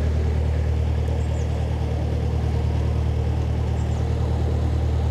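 A narrowboat's inboard diesel engine running steadily while the boat cruises, a constant low drone.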